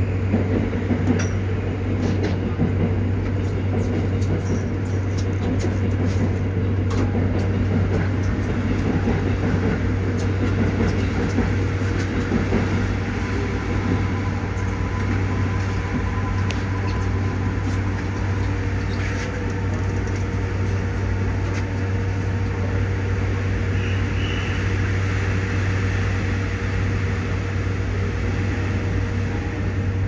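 Inside a Toei 5500 series train car standing at a station: a steady low hum from the car, with heavy rain crackling and ticking on the car's body and windows.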